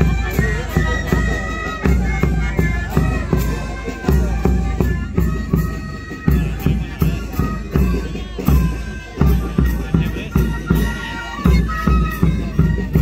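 Traditional dance music played on reedy wind instruments over a steady bass drum beat.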